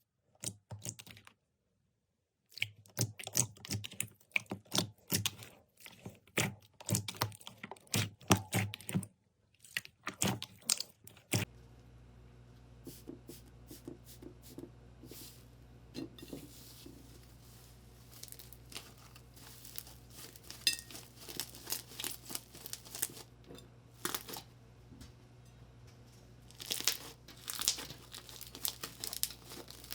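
Slime being squeezed and stretched by hand, giving dense crackling and popping. About a third of the way in the sound changes to softer crinkling over a steady low hum, with the crackling growing busier again near the end.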